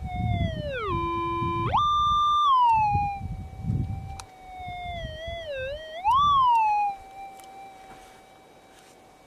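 Minelab GPX4500 metal detector's threshold hum, a steady electronic tone that changes pitch as the coil is swept over the dig hole. It drops low, then jumps high about a second and a half in, and wobbles and swells up again around six seconds: a target signal, the nugget still in the hole. The tone is quieter near the end.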